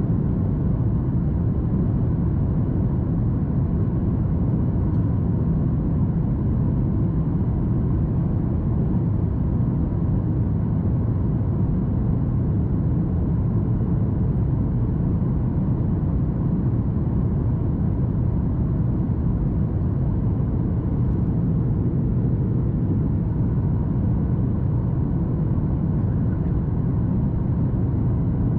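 Steady cabin rumble inside a Boeing 737 MAX 8 in flight: its CFM LEAP-1B engines and the airflow along the fuselage, with a faint steady hum over the deep roar.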